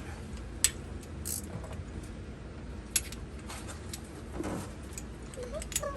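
A few sharp metallic clicks and taps, about three, over a low steady hum, as a battery terminal clamp is tightened onto the battery post.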